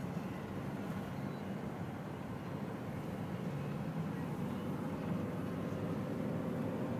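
Steady engine and road noise of a moving car heard from inside its cabin, getting slightly louder toward the end.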